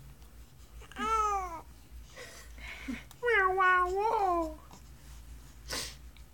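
Baby cooing: a short arching coo about a second in, then a longer coo that rises briefly and falls away, and a brief breathy sound near the end.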